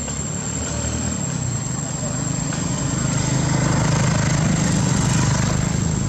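A low, steady rumble that swells to its loudest about four to five seconds in, then eases a little.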